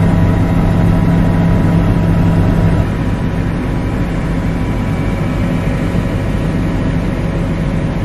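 Helicopter engine and rotor noise heard from inside the cabin: a steady, loud drone that drops a little in level about three seconds in.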